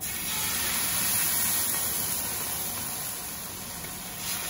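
Thin, watery tomato dosa batter sizzling as it is poured from a ladle onto a hot tawa (flat griddle). It is a steady hiss that starts suddenly as the batter hits the pan. The pan is hot enough to set the batter at once into a lacy, crispy dosa.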